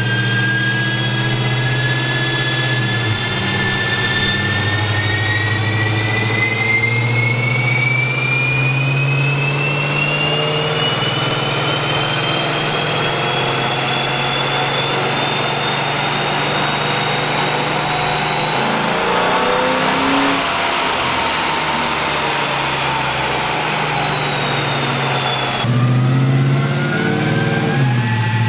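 Dodge Charger R/T's 5.7-litre V8, fitted with long-tube headers, running under load on a chassis dyno during a pull. A whine climbs steadily in pitch for about twenty seconds over a steady low engine note, then eases back down. Near the end it changes suddenly and starts climbing again.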